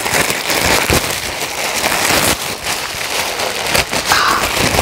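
Grey plastic poly mailer bag crinkling and crackling as it is handled and pulled open, close to the microphone, with many sharp crinkles over a continuous rustle.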